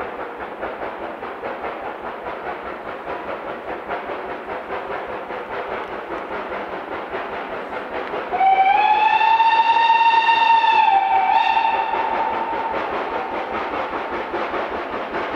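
LMS Stanier Mogul 2968 steam locomotive working a train, its exhaust beating in a steady rhythm. About halfway through its steam whistle sounds one long blast, rising slightly in pitch as it opens, then a brief second toot.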